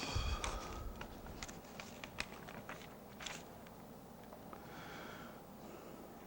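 Scattered sharp clicks and knocks, four or five in the first few seconds with the loudest about two seconds in, against faint room tone.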